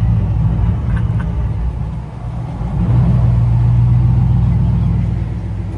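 A vehicle engine running with a deep rumble, swelling louder about three seconds in and easing off near the end.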